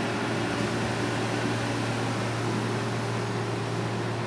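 Gakunan Railway 7000-series electric railcar standing still, its onboard auxiliary equipment giving a steady low hum with a few fixed tones above it.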